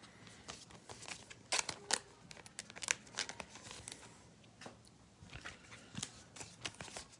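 Plastic wrapping on a box of trading cards crinkling and tearing as the box is opened, with irregular sharp crackles, the loudest a couple of seconds in.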